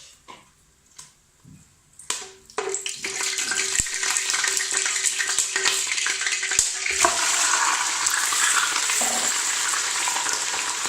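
Desi chicken pieces going into hot ghee and oil and frying with a loud, steady sizzle. It starts suddenly about two seconds in and grows fuller about seven seconds in.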